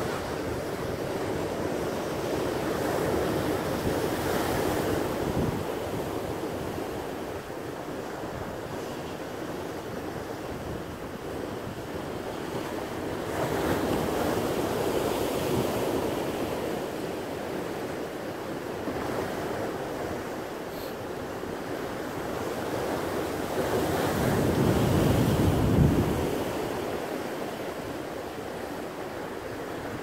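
Sea surf breaking and washing over rocks, a steady rush that swells three times about ten seconds apart, the last and loudest swell a few seconds before the end.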